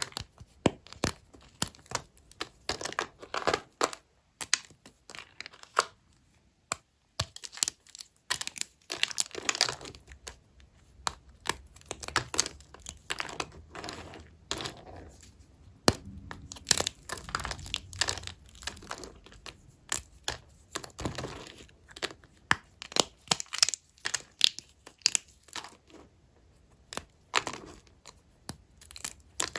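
Small bars of dry, old hotel soap being cut with a knife: an irregular run of sharp cracks and crackling cuts, with a few short pauses.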